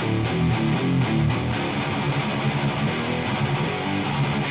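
Hardcore riff played low on a distorted electric guitar through a 100-watt Marshall valve amp head.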